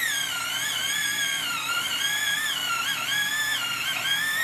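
Electric pencil sharpener running as a coloured pencil is sharpened: a motor whine whose pitch wavers up and down. It sounds violent.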